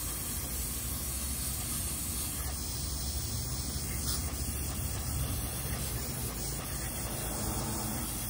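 Aerosol carburetor cleaner sprayed in one long unbroken hiss into the jets and passages of an Edelbrock 650 carburetor.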